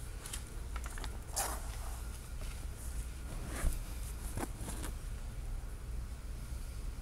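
Light handling noises, soft rustles, taps and a few short scrapes, as a decorated box is moved about on cloth, over a steady low hum.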